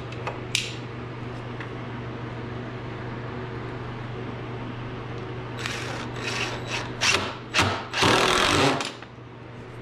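Cordless impact driver driving screws through a caster bracket into a wooden bench leg in several short bursts from about six seconds in, the last one the longest and loudest. The screws are cheap Phillips screws that strip like crazy.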